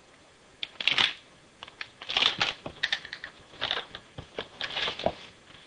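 Metallic anti-static bag crinkling and cardboard packaging rustling as they are handled, in irregular bursts starting about half a second in.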